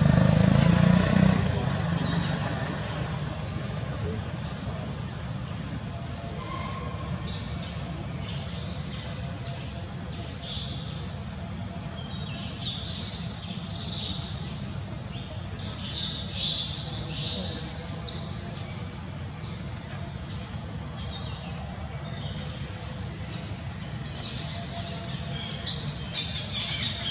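Outdoor ambience of insects droning and birds chirping over a steady low rumble. The insect and bird calls swell in brief bursts about halfway through and again near the end. A louder low rumble fades away over the first couple of seconds.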